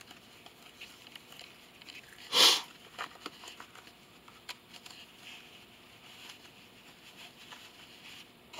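Tarot cards and their packaging being handled: small taps and clicks, with one brief louder swish about two and a half seconds in.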